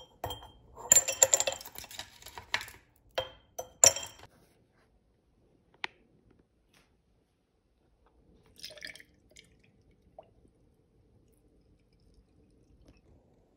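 Ice cubes dropped from a plastic ice tray into a small glass jar, clinking against the glass in a quick run of knocks over the first few seconds, then mostly quiet.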